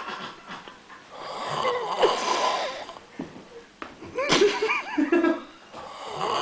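A man snoring loudly in his sleep, with long, rasping, wheezy snores. The biggest come about one and a half seconds in and again about four seconds in.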